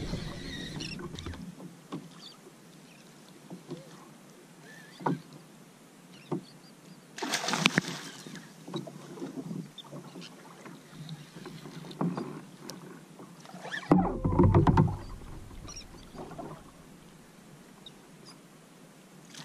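Water slapping and splashing against a fishing kayak, with scattered small knocks. A loud rush of splashing comes about seven seconds in, and a heavy low rumble about fourteen seconds in.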